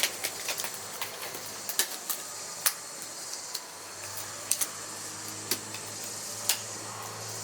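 Protective gloves being pulled on by hand: irregular small snaps and clicks, with a low steady hum underneath.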